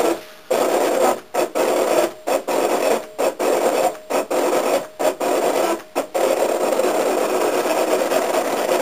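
Cricut Expression die-cutting machine cutting a shape out of cardstock at maximum speed and pressure. Its motors run in short spurts with brief pauses between moves, then run without a break from about six seconds in.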